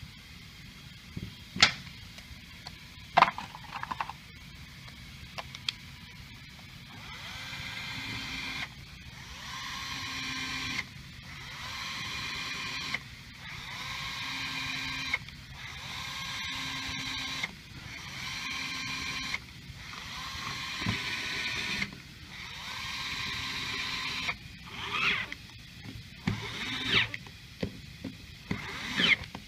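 Pneumatic screwdriver driving the head screws of a diaphragm pump one after another: about eight runs of a steady whine, each a couple of seconds long and cutting off abruptly as the screw seats. Sharp metal clicks come in the first seconds and again near the end as screws and parts are handled.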